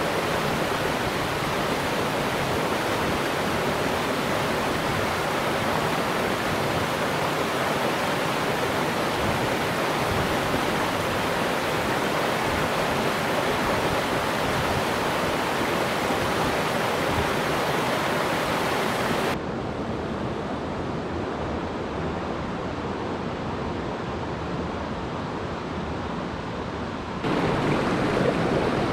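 Steady rush of a shallow, rocky mountain creek flowing over stones. About two thirds of the way through it turns quieter and duller, then comes back fuller near the end.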